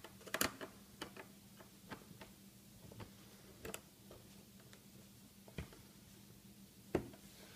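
Phillips screwdriver working the small latch screw on an iMac G5's back cover: faint, irregular small clicks and ticks, bunched in the first second and then sparser, with one sharper click near the end.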